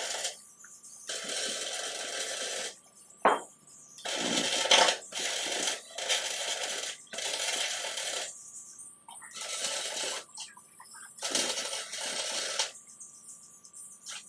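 MIG welder laying short stitch welds: repeated bursts of crackling hiss, each about a second or so long, starting and stopping abruptly with short pauses between. A faint steady tone runs underneath.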